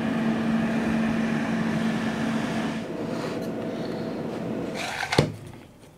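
Countertop air fryer oven running, its fan giving a steady hum whose low tone drops out about halfway through. A sharp knock comes just before the end, and the running noise stops after it.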